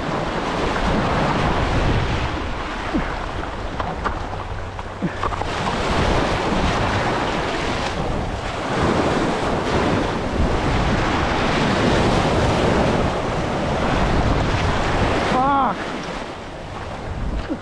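Sea waves surging and washing against the jetty, rising and falling in loudness over several seconds, with wind buffeting the microphone.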